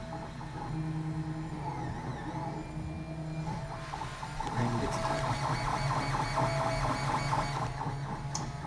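Robo R2 3D printer printing, its stepper motors whirring in steady tones that jump from pitch to pitch as the moves change, with a quick stuttering run of short moves for a few seconds past the middle.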